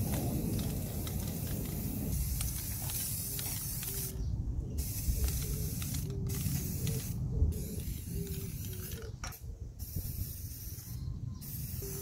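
Aerosol spray can of lacquer hissing as it coats a metal wire shelf: one steady spray for about the first four seconds, then shorter spurts with brief pauses between.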